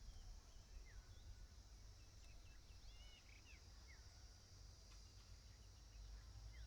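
Faint outdoor ambience: scattered short bird chirps and whistles over a steady high-pitched insect drone, with a low rumble underneath.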